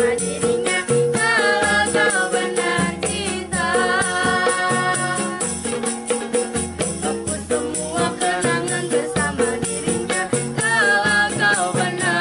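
Acoustic street-busker band playing an upbeat pop song: ukulele strumming, a tambourine jingling and a hand-beaten homemade drum keeping a steady beat, with young voices singing the melody in Indonesian.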